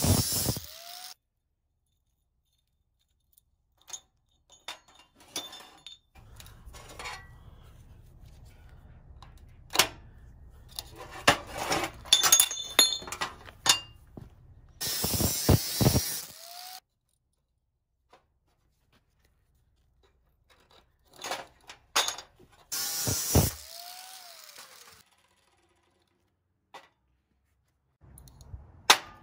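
Angle grinder with a cut-off disc cutting steel square tube in several short bursts of a second or two, the motor's pitch shifting as each cut ends. Between the cuts, small steel pieces clink and clatter on a steel work table.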